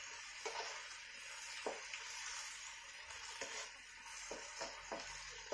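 Scallions, garlic and chilli sizzling in a nonstick wok as a wooden spatula stirs them, with several short scrapes and taps of the spatula against the pan.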